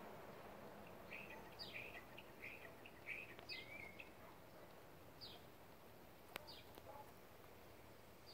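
Faint outdoor ambience with a small bird calling: a quick run of short chirps from about one to four seconds in, then a few single downward-sliding notes. A single sharp click comes a little after six seconds.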